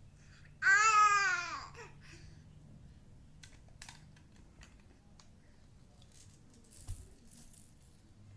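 An eight-month-old baby lets out one loud, high-pitched squeal about half a second in, rising then falling in pitch over about a second. Afterwards there are faint scattered clicks and taps of toys being handled.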